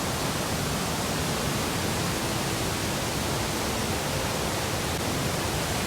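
Steady rushing of a tall waterfall crashing down: a constant, even noise with no breaks.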